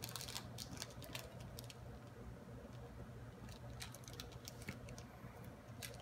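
Small plastic toy wrapper crinkling and tearing as it is picked open by hand: faint, irregular crackles, busiest in the first second.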